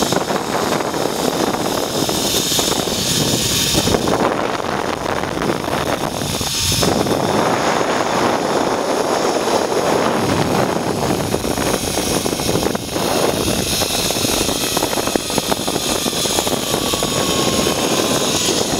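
Zipline trolley pulleys running along the cable, a loud steady whirring mixed with wind rushing over the microphone. In the second half a faint whine slowly falls in pitch.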